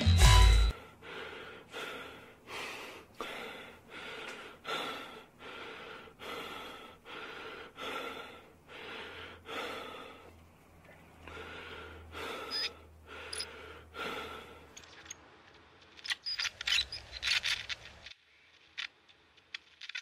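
Footsteps on wet pavement at a steady walking pace, a little under two steps a second, over a faint low hum. A few sharper clicks come near the end, and then the sound cuts off.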